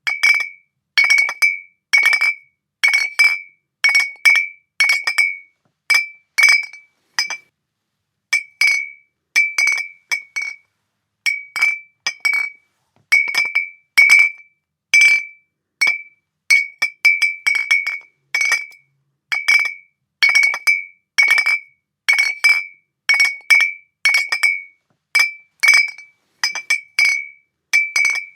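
Glass bottles clinking against each other, one or two sharp strikes a second, each ringing briefly at the same clear high pitch.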